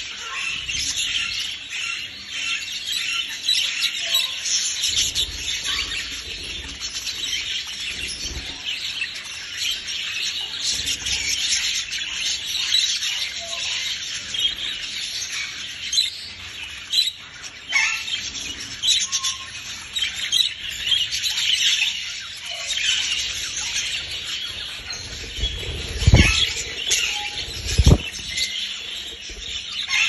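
Budgerigars chattering and warbling, a dense run of quick high chirps and trills. There are two dull thumps about two seconds apart near the end.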